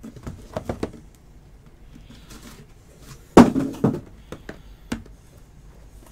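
Things being handled on a tabletop: a quick run of light taps and clicks at the start, one loud thump a little past the middle, then a few more light knocks.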